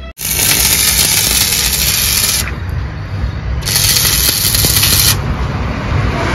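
Electric arc welding on steel, a steady crackling hiss. It comes in two runs: the first lasts about two seconds, then after a short break a second starts about three and a half seconds in and lasts about a second and a half.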